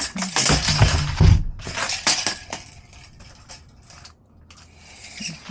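Pieces of wood clattering and knocking together as they are rummaged through and pulled out. The clatter is loudest in the first couple of seconds, then tails off into a few lighter knocks.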